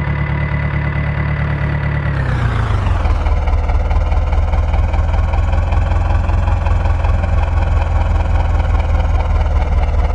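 Diesel engine of a tractor or backhoe loader running steadily; about two seconds in its pitch drops, then holds steady at the lower speed.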